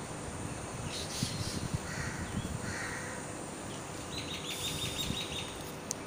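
Birds calling in the open: two short calls a little over two seconds in, then a quick rattling run of high chirps near the end, over a low gusty rumble of wind on the microphone.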